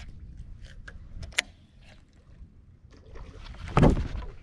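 A few light clicks over quiet water, then about four seconds in a sudden loud splash and rush of noise as a bass strikes a topwater frog and the hook is set.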